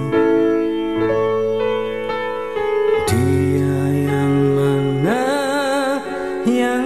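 Malay-language song: a male singer holds long notes with wide vibrato over keyboard chords. A new sung line begins about three seconds in.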